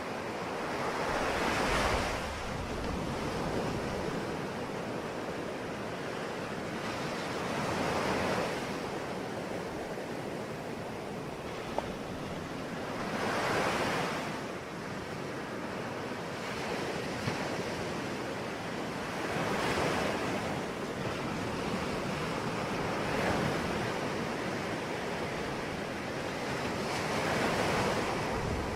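Sea waves breaking on a shore, a steady wash of surf with a wave swelling and falling back about every six seconds.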